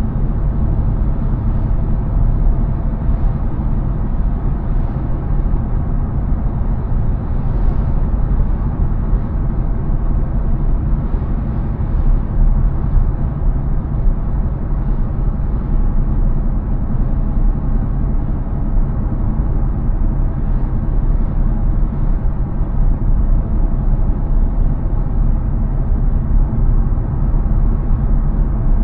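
A car on the move: a steady low rumble of engine and tyres on the road, unbroken throughout.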